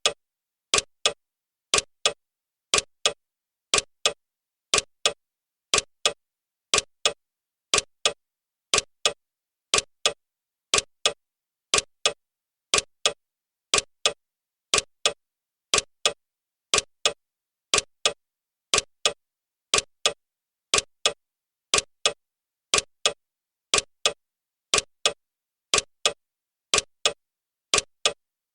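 Clock ticking sound effect: evenly spaced sharp ticks with silence between them, marking off the seconds of a countdown timer.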